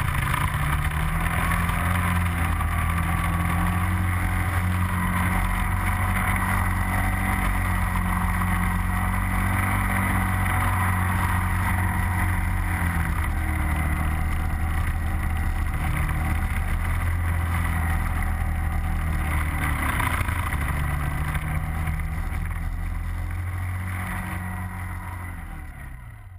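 Quad (ATV) on snow tracks running steadily under load through deep snow, its engine note wavering a little with the throttle. The sound fades out over the last few seconds.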